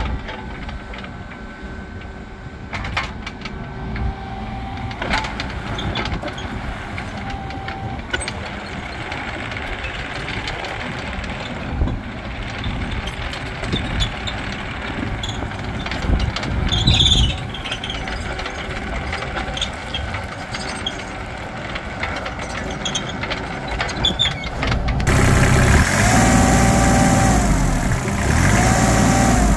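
Kubota U30-5 mini excavator's diesel engine running while its hydraulics work the boom, arm and bucket, with a few clanks. About twenty-five seconds in the sound cuts to the engine heard close up, louder, with a tone that rises and drops away several times.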